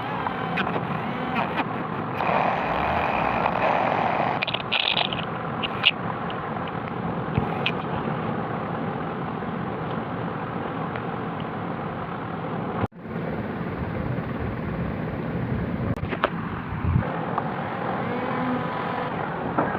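Steady background noise like road traffic, with a few scattered clicks. It cuts out for a moment about thirteen seconds in.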